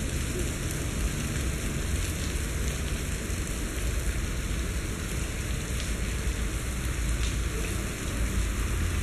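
Steady rain falling hard, with a low rumble underneath.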